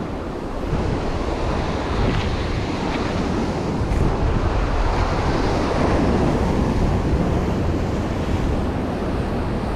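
Ocean surf washing against a rocky shoreline, a steady rushing that swells a little midway, with wind buffeting the microphone.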